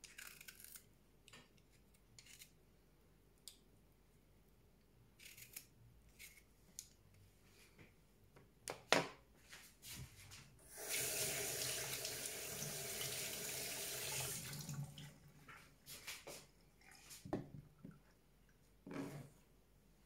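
Kitchen tap running into a stainless steel sink for about four seconds around the middle, as if something is being rinsed. Before and after come scattered light knocks and scrapes on the cutting board, with one sharp knock just before the water.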